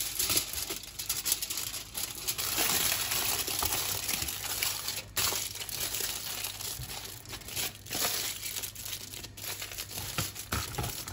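Aluminium foil crinkling and crackling as it is rolled, twisted and pressed around a filled tortilla wrap, with an irregular run of crackles and a few sharper clicks.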